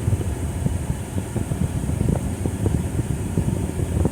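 Car cabin noise while driving: a steady low rumble of road and engine, with small irregular knocks and rattles from the road surface.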